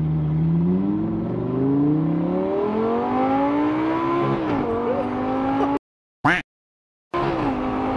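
2009 Lamborghini Gallardo LP560-4's V10 engine through a straight-pipe exhaust, heard from inside the cabin under hard acceleration: the pitch climbs, drops sharply at two upshifts and climbs again. The sound cuts out for about a second near the end, then the engine carries on at a steadier pitch.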